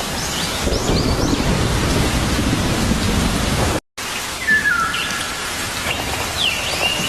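Steady heavy rain with a low rumble of distant thunder in the first half, and a few short bird chirps over the top. The sound cuts out completely for a split second a little past the middle.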